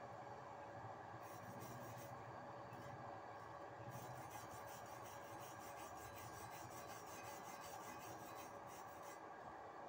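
Hand wire brush scrubbing over a fresh stick-weld bead on steel plate, cleaning off the slag: faint, rapid back-and-forth scratching strokes, a short bout about a second in, then steady scrubbing from about four seconds until near the end.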